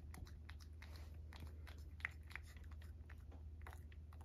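A cat licking a paste treat (Churu) from a small ceramic saucer: soft, irregular wet licking clicks, two or three a second, with one sharper click about two seconds in. A low steady hum sits underneath.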